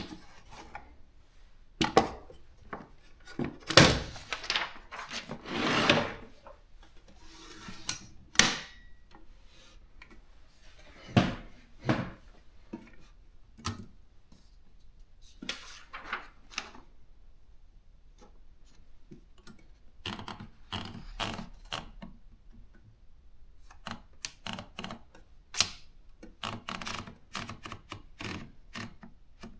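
Consul 232 manual typewriter being worked: loud knocks and a couple of longer scraping sounds in the first several seconds, scattered single clacks, then from about twenty seconds in a quicker run of key strikes as typing gets going.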